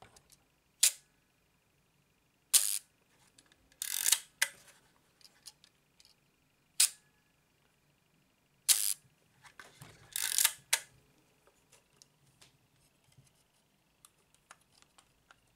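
Leaf shutter of a LOMO Lubitel 166 twin-lens reflex camera being worked by hand: about eight sharp mechanical clicks, some single and some in quick clusters, over the first ten or eleven seconds, then only faint ticks.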